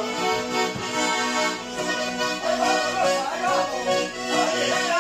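Accordion playing a lively tune with sustained chords, and a voice singing the melody over it with a wavering vibrato, strongest in the second half.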